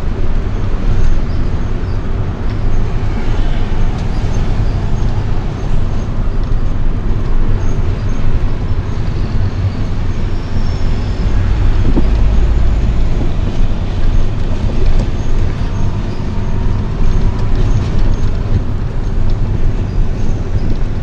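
Steady low rumble of vehicle engine and road noise while driving in traffic, swelling heavier for a moment about twelve seconds in.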